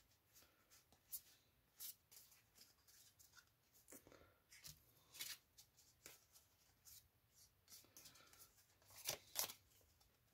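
Near silence broken by a few faint, short taps and slides of trading cards being handled and laid on a pile, the clearest two close together about nine seconds in.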